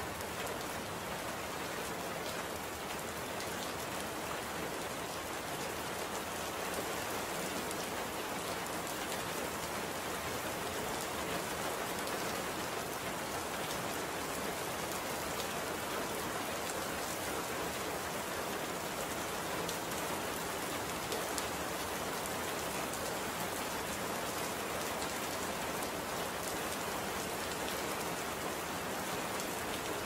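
Steady rain falling, an even wash of noise with faint drop ticks here and there.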